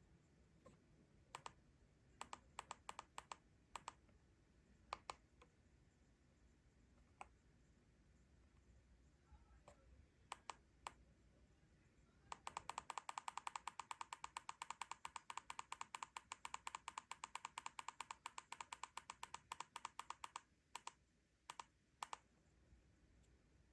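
Faint, sharp clicks: scattered single clicks and short quick runs, then about eight seconds in, a fast, even train of about eight clicks a second that lasts about eight seconds and stops abruptly, followed by a few more single clicks.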